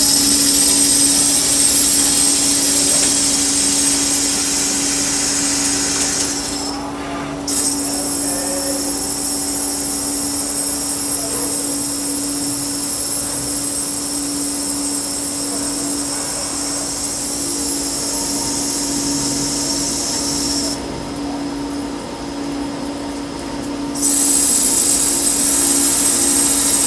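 Metal lathe running and cutting a workpiece held in its chuck: a steady hum with a high-pitched whine above it. The whine drops out briefly about seven seconds in and again for about three seconds near the end, then comes back.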